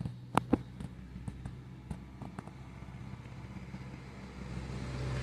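Steady low mechanical hum that grows louder near the end, with a few short sharp clicks in the first half.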